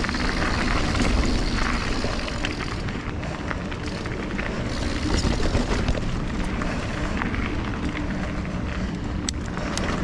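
Mountain bike riding fast down a rocky trail: a steady rush of wind on the microphone with the bike rattling and knocking over rocks throughout.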